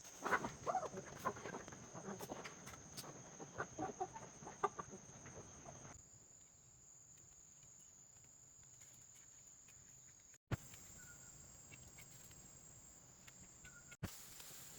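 Chickens clucking, a run of short calls for about six seconds. After that a quieter background with a steady high whine, broken by abrupt cuts.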